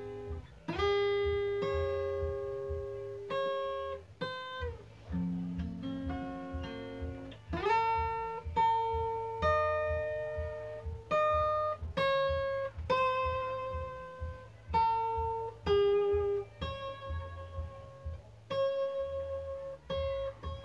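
Solo acoustic guitar played fingerstyle: a slow melody of single plucked notes ringing over a low repeating bass, with a few notes slid up into.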